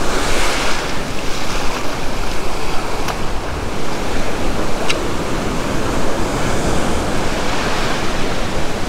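Ocean surf: waves breaking and washing up the sand at the water's edge, a steady rush with a louder wash at the start.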